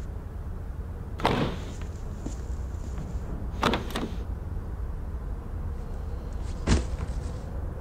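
Car door clunks and knocks at an old Mercedes-Benz saloon's open door: three short knocks, about a second, three and a half seconds and near seven seconds in, the last the loudest, over a steady low hum.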